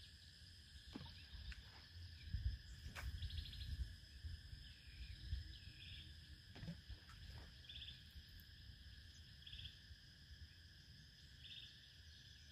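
Faint outdoor insect chorus: a steady high buzz with short chirps repeating about every two seconds, over a low wind rumble on the microphone.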